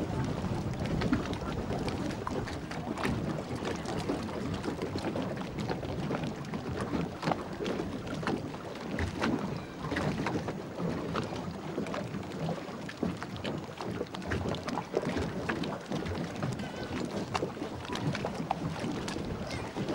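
Boat under way on a lake: a steady rush of water with frequent small splashes against the hull, and wind buffeting the microphone.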